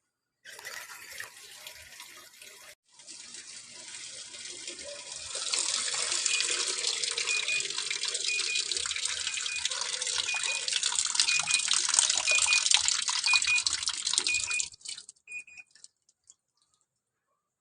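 Water rushing into the tub of a Panasonic NA-90EB-W top-loading washing machine as it fills, growing louder about five seconds in and cutting off suddenly near the end.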